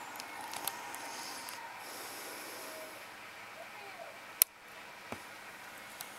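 Steady background hiss with faint, indistinct voices, broken by a single sharp click about four and a half seconds in and a couple of smaller clicks.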